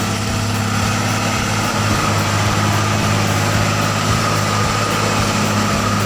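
Heavy truck's diesel engine running steadily at an even, constant pitch.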